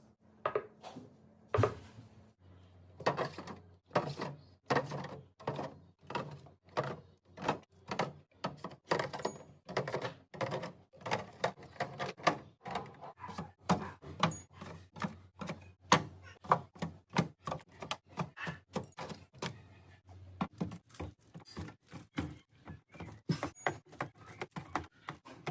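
Containers, bottles and packages being set down and slotted into a refrigerator's shelves and door bins: a quick, irregular run of light clacks and knocks, two to four a second.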